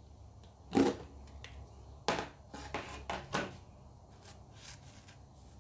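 Plastic tub lid pulled off with a sharp snap about a second in, then a few short gritty scrapes and knocks as fingers dig into the salt packed inside.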